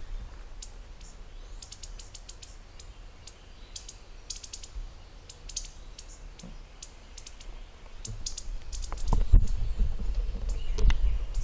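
Small songbirds chirping: short, high notes in quick clusters. About two-thirds of the way in, low rumbling and knocks come in and are louder than the birds.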